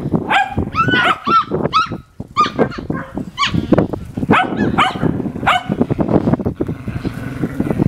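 A litter of six-week-old puppies yapping and yipping, many short, high-pitched barks close together and overlapping, with a brief lull about two seconds in.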